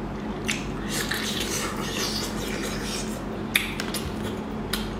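Close-up mouth sounds of chewing seafood: wet smacking with several sharp clicks, the loudest about three and a half seconds in.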